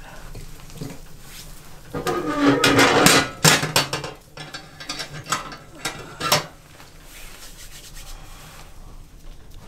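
Split wood being shoved into a wood stove's firebox, scraping and rattling for about two seconds, then a few sharp metallic knocks as the small iron firebox door is swung shut and latched.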